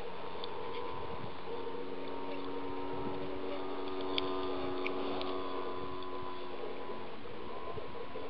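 Motor of a large radio-controlled Piper Cub model running steadily as it flies overhead, a distant droning hum whose pitch shifts slightly near the end. Two faint clicks come about halfway through.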